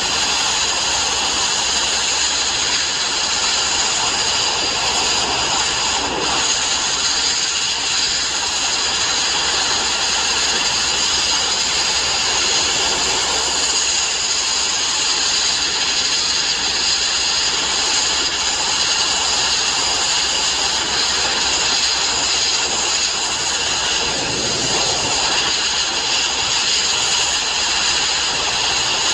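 Sandblasting nozzle running continuously: a steady, loud abrasive-blast hiss, likely stripping steel plate ahead of welding.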